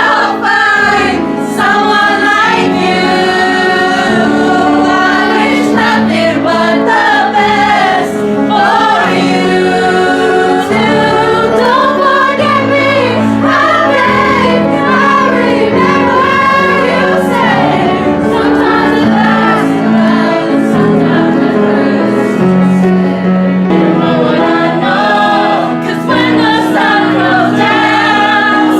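Music with a group of voices singing together over instrumental accompaniment, continuing without a break.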